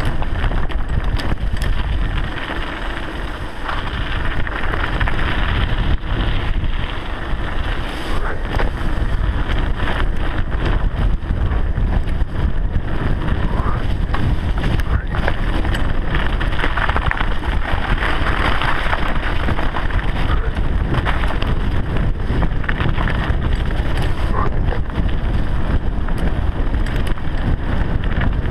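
Wind rushing over the microphone of a camera on a fast-moving mountain bike, over a steady rumble of tyres on a wet dirt trail, with frequent short knocks and rattles from bumps.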